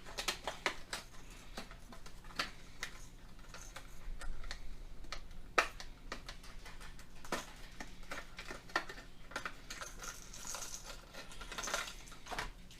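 Irregular sharp clicks and light plastic rustling as a hard-bodied crankbait and its plastic packaging are handled, with a short burst of crinkling near the end.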